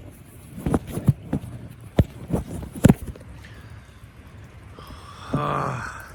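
Several sharp knocks and clicks of something handled close to the microphone, then a short vocal sound of about half a second near the end.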